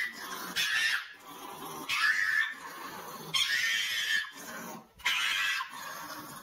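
A pug making a run of loud, breathy noises, four of them, each under a second long, with short pauses between.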